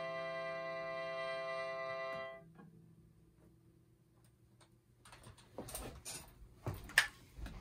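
Melodica holding a long final note, which stops about two and a half seconds in. Then comes a quiet stretch with a few faint clicks and handling noises, and one sharp click near the end.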